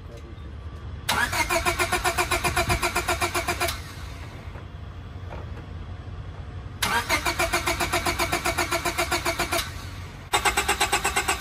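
1998 Honda Civic engine cranking on the starter in three tries, turning over briskly with a quick, even chug, about six beats a second, but never catching. The no-start was traced to corroded contacts in the distributor cap.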